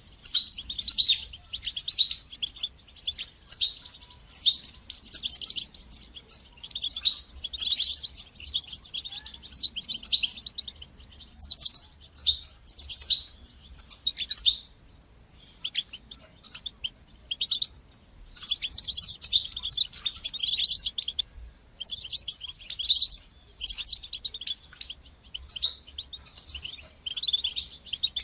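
European goldfinch song: quick runs of high, twittering chirps and trills in phrases broken by short pauses.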